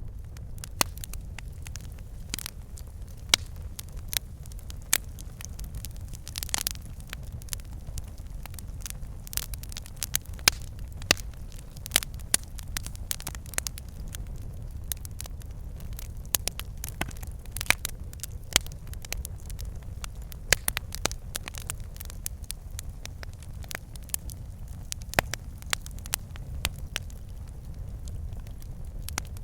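Wood fire burning in a fireplace: a steady low rumble of the flames with irregular crackles and pops from the logs.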